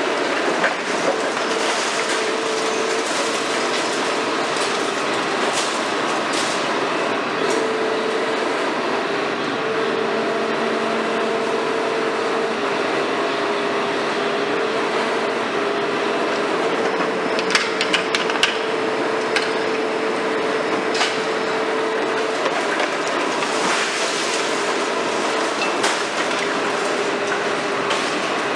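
Long-reach demolition excavator (Hitachi 350 built up as a KMC 400 high-reach) working on concrete: a steady machine noise with a held tone that comes and goes, under the crunching and clatter of broken concrete. There is a run of sharp cracks and knocks about two-thirds of the way through.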